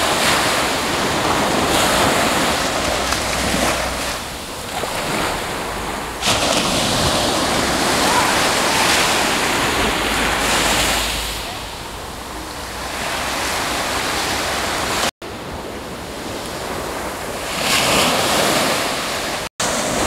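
Mediterranean surf washing up a sandy beach and drawing back, swelling and ebbing in slow waves, with wind rumbling on the microphone at times. The sound cuts out for an instant twice near the end.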